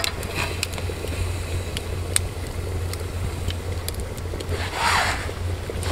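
Wood campfire burning in a stone fire ring, crackling with scattered sharp pops over a steady low rumble, with a brief rush of noise about five seconds in.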